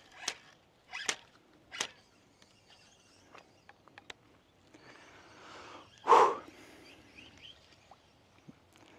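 A spinning rod swishing sharply through the air three times in quick succession, then one louder, sharp burst of sound about six seconds in, with faint ticks in between.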